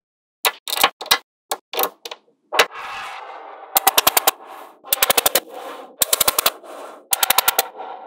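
Small neodymium magnet balls clicking as they snap together: a few single clicks, then from about four seconds in several quick rattling runs of clicks, about eight to ten a second, as rows of balls join.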